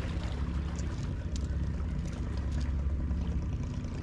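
A low, steady rumble, with a few faint clicks as the fishing lures are handled.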